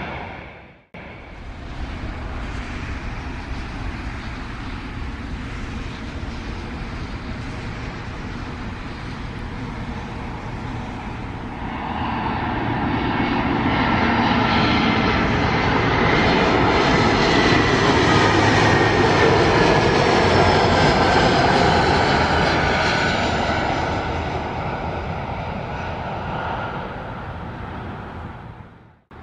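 Embraer E175 regional jet passing low on final approach: the noise of its twin turbofan engines swells to a peak midway, with a high whine that slides down in pitch as it goes by, then fades.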